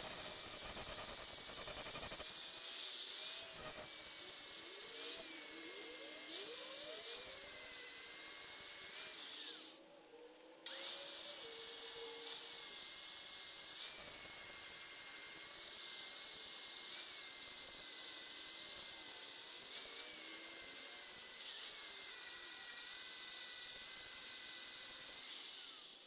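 Angle grinder with an abrasive wheel grinding thick, hard mill scale off a steel slab: a steady high whine with grinding noise. It stops for about a second about ten seconds in, picks up again, and winds down near the end. The scale is clogging the wheel so that it cuts poorly, as the owner sees it.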